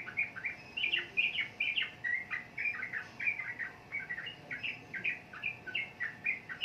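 Yellow-vented bulbul (trucukan) singing a rapid, unbroken run of short chirping notes, several a second: the fast 'ropel' song that keepers prize.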